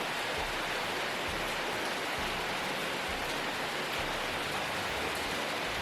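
Steady, even hiss of water, with no breaks or single splashes standing out.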